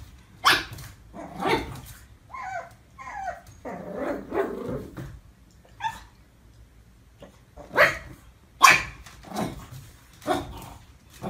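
A pug puppy barking at its own reflection in a mirror: about seven short, sharp barks spread through, with a couple of high, wavering yips and a low growl a few seconds in.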